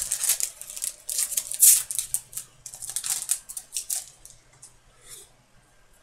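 Trading cards being slid and flicked one over another in the hands: a quick run of short, dry scrapes and flicks that thins out toward the end.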